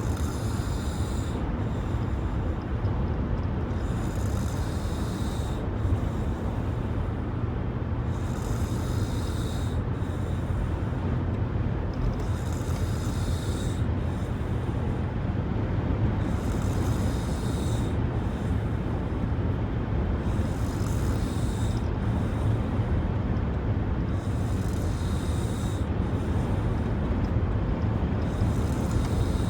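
A person snoring, with a hissing, rasping breath about every four seconds, over a steady low rumble.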